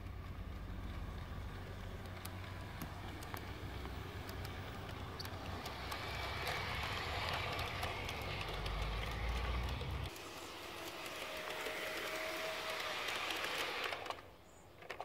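Garden-railway model train running on its track: a steady rolling of wheels on the rails with scattered clicks. A deep rumble under it stops about two-thirds of the way through, and the sound drops away sharply near the end.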